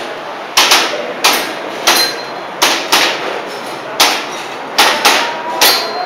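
Airsoft pistol fired in a string of about ten sharp shots at uneven spacing during an IPSC course of fire, a few followed by a faint ringing.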